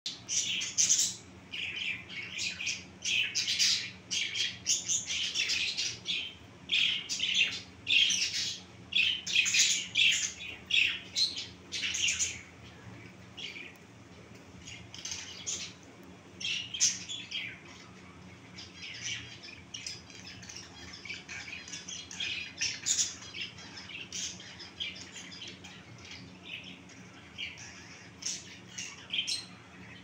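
A small group of pet finches chirping and calling in short, high notes. The calls come thick and fast for about the first twelve seconds, then grow sparser.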